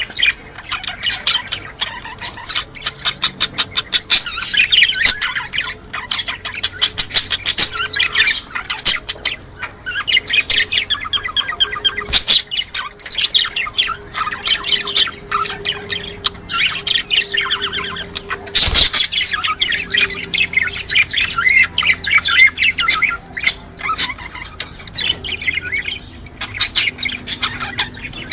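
A crowd of small cage birds chirping and chattering without pause, a breeding-stimulation recording played to get cage birds into the mood to mate. A sharp click stands out about two-thirds of the way through.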